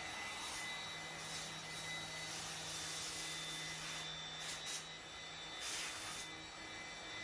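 CNC wood router running, its spindle cutting wood: a steady hiss and hum with a thin high whine, and a few short hissing surges a little past halfway.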